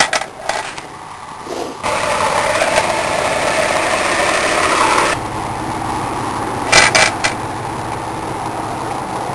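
Forklift running: a steady mechanical noise that gets louder about two seconds in and drops back to a lower hum about five seconds in, with a couple of sharp metallic clanks near the seven-second mark.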